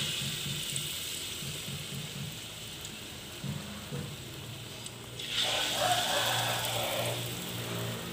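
Corn fritter batter sizzling as it deep-fries in hot oil in a wok. The sizzle eases off in the middle, then swells sharply about five and a half seconds in as a second spoonful of batter goes into the oil.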